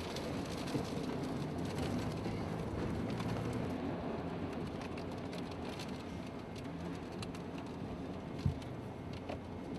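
Steady rushing noise of a violent windstorm, with a single sharp knock near the end.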